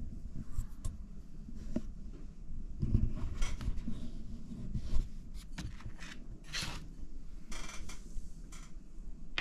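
Low steady background rumble with intermittent soft rustling and a few light knocks.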